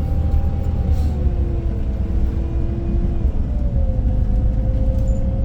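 Iveco Crossway Line 12 bus running, heard from inside the cabin: a steady low drivetrain rumble with a thin whine that slides down in pitch over the first four seconds, then holds steady. The uploader counts the bus's altered, strange running sound as its defect.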